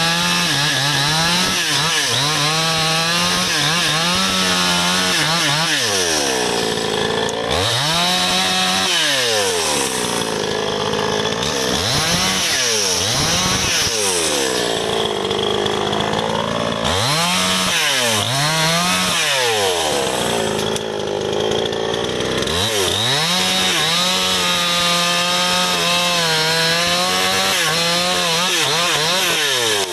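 Two-stroke chainsaw cutting through a felled sengon log, running at high revs. About four times the engine speed sags and then sweeps back up as the throttle is eased off and opened again between cuts.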